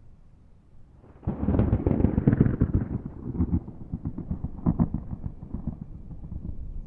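A thunderclap breaks in suddenly about a second in: a loud crackling crash that rolls on as a rumble, with a few more sharp cracks as it fades.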